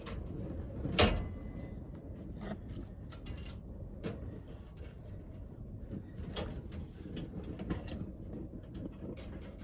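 Knocks and clicks of camp cookware and stove parts being handled, with one loud sharp knock about a second in and lighter clatter after it, over a steady low rumble.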